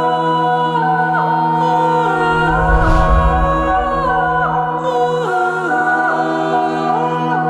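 Soundtrack music: held, wordless vocal-like tones that glide between notes over a steady low drone, with a deep boom about three seconds in.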